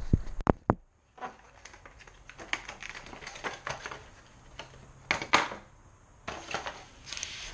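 Hard plastic lure packaging being handled and opened: sharp clicks and knocks near the start, then scattered small clicks and crackles, with two loud clicks about five seconds in.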